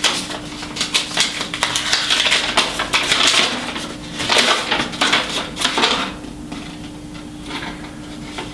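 Rustling, crinkling and clicking of packaging and paperwork being handled, busiest in the first six seconds and quieter after.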